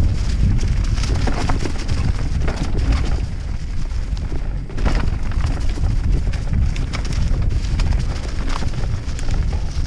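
YT Capra enduro mountain bike descending a rocky, leaf-strewn trail at speed: a steady low rumble of tyres and wind on the microphone, with frequent clicks and knocks of the bike rattling over rocks and roots.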